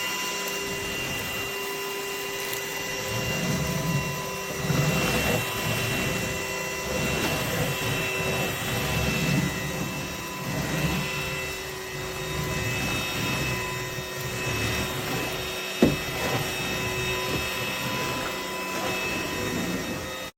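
Cordless stick vacuum running with a steady whine while it is pushed back and forth over a floor, a rubbing surge every second or two, with one sharp click near the end.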